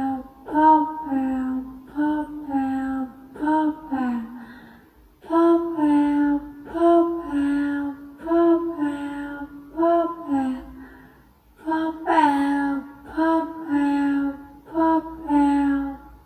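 A woman's voice saying 'pop out' over and over in a sing-song tone, each phrase starting sharply and falling in pitch, with short pauses between the repeats.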